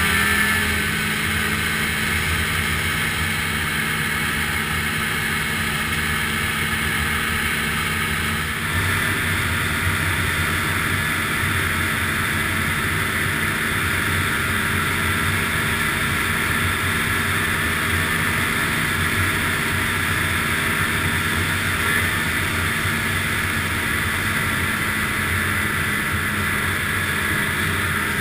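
Ski-Doo snowmobile engine running steadily at cruising speed on a groomed trail, heard from on board. About eight seconds in, the sound grows a little brighter and louder and then holds steady.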